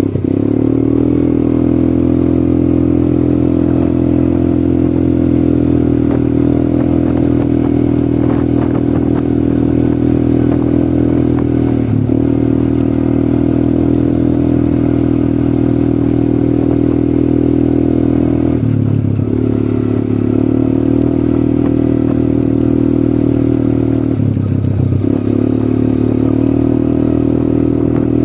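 ATV engine running at a steady pace under way, with three brief drops in revs that pick straight back up.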